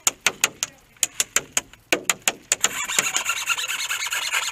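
Airsoft gunfire around a wooden bunker: a run of sharp separate cracks, then, a little past halfway, a dense fast rattle.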